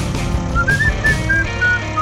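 Background music: a whistled melody of short notes over a steady beat.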